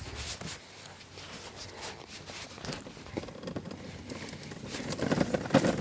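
Walking sounds: light, scattered footsteps and taps with some rustling, quiet and irregular.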